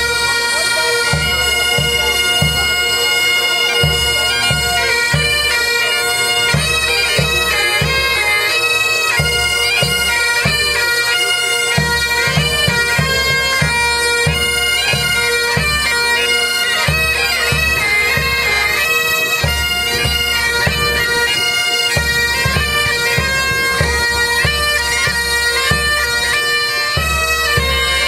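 Pipe band playing: several Great Highland bagpipes sounding a steady drone under the chanter melody, with a bass drum beating time in regular low thumps.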